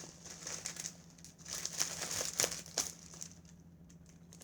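Packaging crinkling and rustling as a package is worked open by hand, with sharp crackles and short tears that die down near the end.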